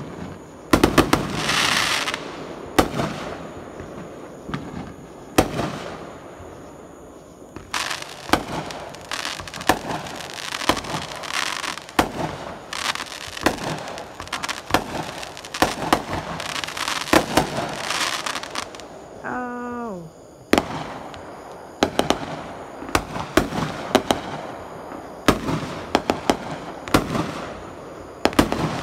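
Consumer aerial fireworks going off one after another: many sharp bangs and pops, with several stretches of dense crackling lasting a second or two each.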